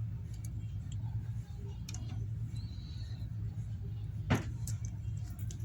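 A steady low hum with a few faint clicks and one sharper click about four seconds in, from small tools and phone parts being handled as the front camera goes back into an iPhone 8.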